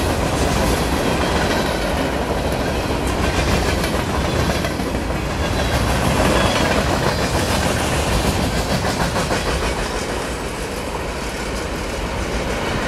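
Boxcars of a CN freight train rolling past, their steel wheels running steadily on the rails with repeated faint clicks.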